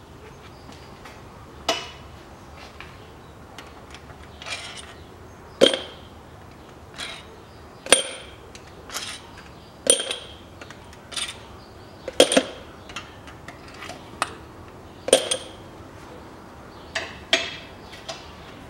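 Steel head bolts and tools clinking as the loosened cylinder head bolts are pulled out of a Toyota 3S-FE engine during teardown: about fifteen sharp, ringing clinks at irregular intervals of roughly a second.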